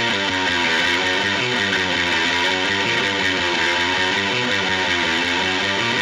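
Heavily distorted electric guitar playing a riff through a Randall amp impulse-response simulation, a raw grunge tone, notes changing several times a second.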